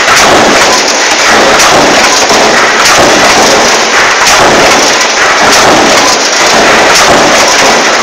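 Double-point mechanical power press running a progressive die that stamps sheet-metal electrical junction boxes: a heavy strike about every second and a bit, over a continuous loud mechanical clatter.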